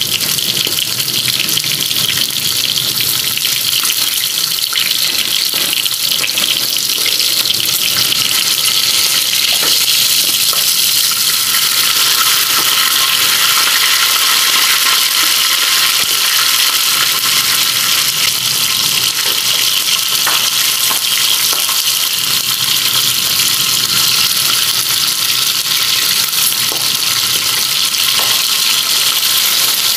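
Milkfish pieces shallow-frying in hot oil in a nonstick pan, sizzling steadily.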